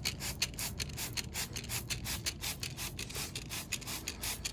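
Degreaser being worked onto a dirty motorcycle part: quick rhythmic rubbing strokes, about five a second.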